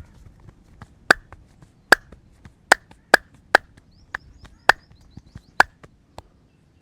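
Masseur's hands clapping sharply during a head massage: about eight loud, crisp claps at an uneven pace, roughly half a second to a second apart.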